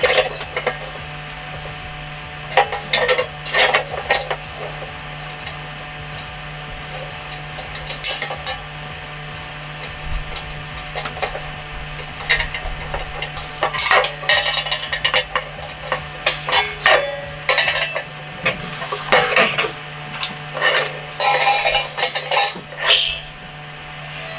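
Thin metal barbecue legs, bowl and fittings clinking and rattling as they are handled and bolted together by hand, in irregular short clatters with pauses, busier from about halfway through. A steady low hum runs underneath.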